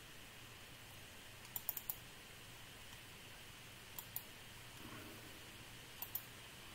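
Computer mouse clicks: a quick run of three about a second and a half in, then pairs of clicks near four and six seconds in, over a faint steady low hum.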